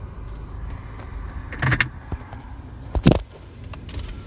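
Inside a stopped car with the engine idling: a steady low rumble, scattered light clicks, and two heavier knocks of handling, about one and a half and three seconds in, the second one deeper and louder.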